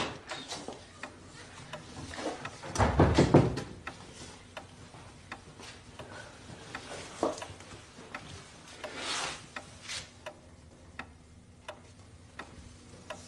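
Hands rubbing, tapping and knocking on wooden panelling and an old wooden cabinet: scattered clicks and light knocks, with a louder cluster of knocks about three seconds in.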